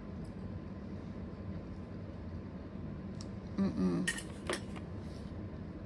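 Metal fork clinking sharply twice against a dinner plate, about two-thirds of the way in, over a steady room hum.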